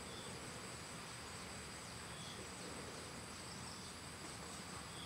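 Steady insect chorus: continuous high-pitched trilling, with three faint short chirps spread through it.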